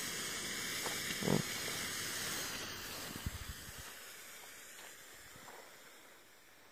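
Blackbox purple smoke flare hissing steadily as it pours out smoke, the hiss dying away over the second half. A short knock about a second in.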